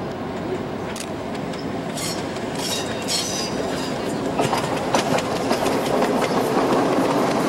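A Tandy Center Subway car running on its track, coming closer and getting louder as it passes near, its wheels clicking over the rail joints. Brief high wheel squeals sound around two to three seconds in as it comes round the curve.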